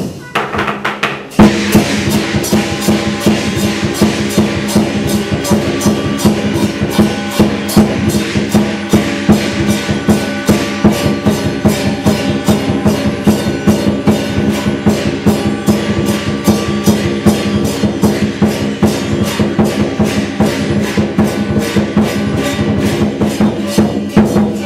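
Chinese lion dance percussion: a large barrel drum beaten together with clashing cymbals and a gong in a fast, even rhythm. After a short lull near the start, a loud strike about a second and a half in brings the full beat back.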